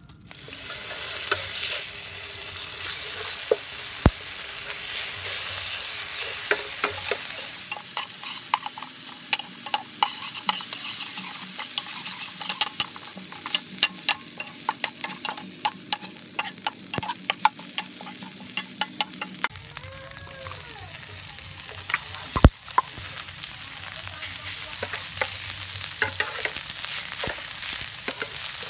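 Hot oil sizzling in a frying pan as a spice paste is stir-fried, starting about half a second in, with a spatula scraping and clicking against the pan many times.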